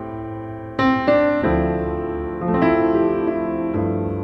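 Background music: slow piano chords, a new chord struck every second or so and left to ring out.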